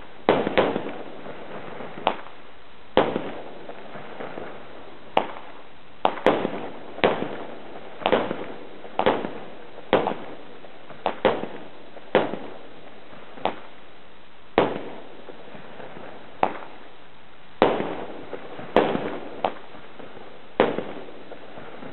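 A consumer fireworks battery (cake) firing shot after shot, about one sharp bang a second with the odd quick pair. Each bang rings on briefly.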